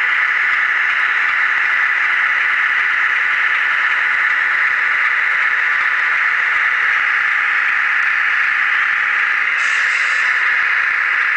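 Small electric drive motor and gearing of a model RC truck whirring steadily, heard close up from the truck itself. A brief brighter hiss joins it about ten seconds in.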